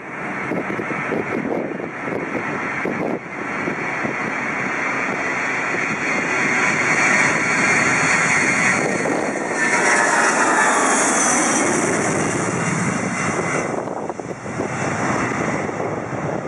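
Boeing 707-138B's four Pratt & Whitney JT3D turbofans at takeoff power during the takeoff roll. The jet noise grows louder as the airliner approaches, then a falling whine as it passes about ten seconds in, and the sound eases off slightly near the end as the aircraft lifts off.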